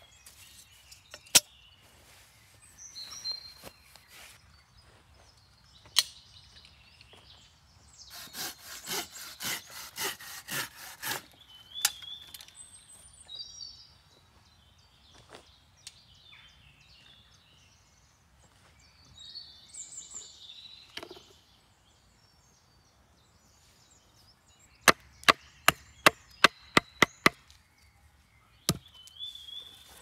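Batoning wood with a bushcraft knife: a wooden baton strikes the knife's spine to drive it into a log, and the wood cracks and splinters. Near the end there is a quick series of about seven sharp knocks, about three a second. Earlier there are scattered single knocks and a denser run of wooden knocks, with birds chirping now and then.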